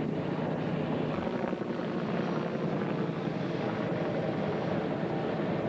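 Military helicopter flying a display pass, its rotor and engine giving a steady, even drone with a low hum.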